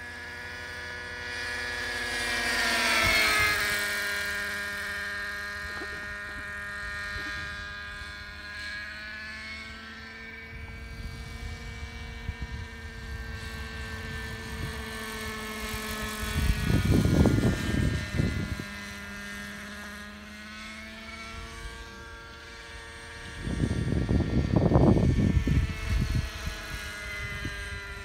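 Hirobo Freya radio-controlled model helicopter flying overhead: a steady, many-toned whine of engine and rotors, loudest and dropping in pitch as it passes about three seconds in, then drifting up and down in pitch as it manoeuvres. Two loud bursts of low rumble come about halfway through and near the end.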